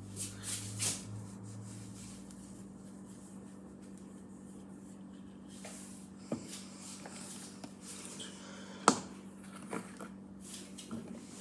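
Handling noise from a phone being moved and bumped: scattered soft knocks and rustles, with one sharp click about nine seconds in, over a steady low hum.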